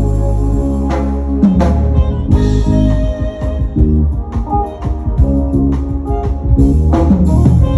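Live band playing an instrumental passage at a sound check, with held bass and keyboard notes under guitar and drum strokes.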